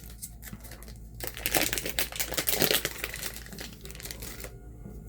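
Foil trading-card booster pack wrapper crinkling and tearing open by hand, loudest from about one to three seconds in.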